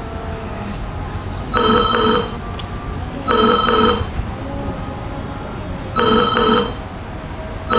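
Telephone ringing: four short trilling rings in two pairs, each ring a quick double pulse, over a steady low hum.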